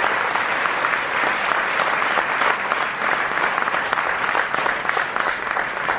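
Theatre audience applauding steadily, many hands clapping together.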